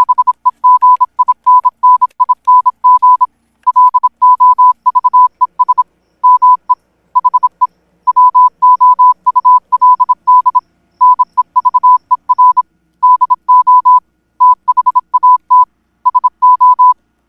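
A loud electronic beep at one steady pitch, switched on and off in quick short and longer beeps with gaps between the groups, like Morse code.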